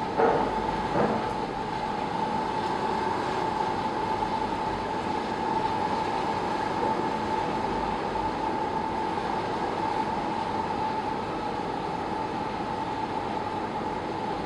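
Bored piling rig running with a steady mechanical hum and a constant high tone, without loud repeated knocking. Two short knocks sound near the start, about a second apart.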